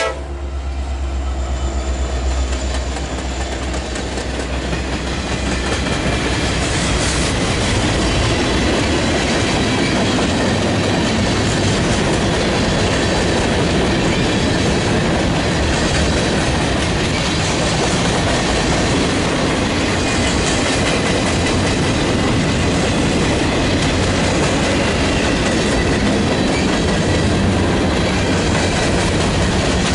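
Norfolk Southern freight train passing close by: the diesel locomotive's low rumble in the first few seconds, then a long string of covered hopper cars rolling past with steady wheel-on-rail noise.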